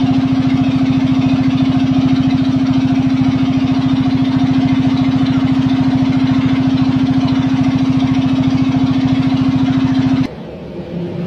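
Steady, loud machine drone with a fast, even pulse from the arc-welding set. It cuts off abruptly near the end.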